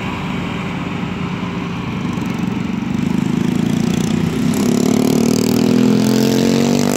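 Diesel engine of a loaded six-wheel dump truck pulling away over mud, with a farm tractor's engine running alongside. An engine note climbs in pitch and grows louder from about four seconds in.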